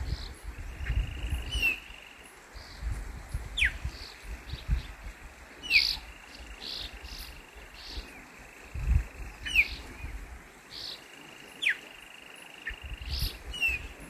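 Chopi blackbird (pássaro-preto) calling: about six sharp whistles that slide quickly downward, a couple of seconds apart, with short higher notes between them.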